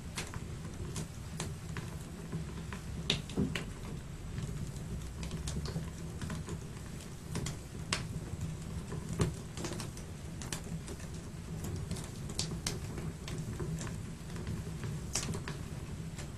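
Wood fire burning in a fireplace, crackling with irregular sharp pops and snaps over a low steady rumble.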